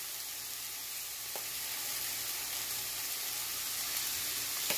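Sliced sausage, zucchini noodles and spaghetti sizzling in a hot frying pan, a steady hiss, with one light click about a second and a half in.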